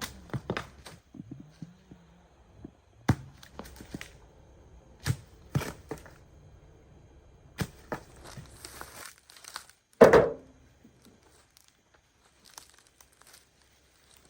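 Sharp knocks and cracks from hand construction work, spaced a second or two apart with rustling between. One heavy thunk about ten seconds in is the loudest sound.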